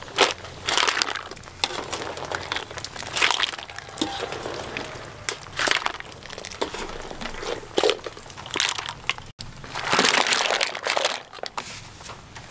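Boiled mussel shells clattering and scraping together in a metal mesh strainer as they are scooped out of a pot of boiling water, with water splashing and draining off them. The clatters come unevenly, one scoop after another.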